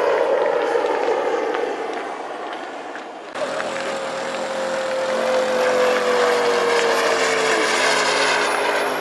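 Turbine engine of a radio-controlled model jet flying past, a whine falling in pitch as it passes. About three seconds in the sound changes suddenly to a clear steady whine that slowly drops in pitch, with a thin very high whistle above it.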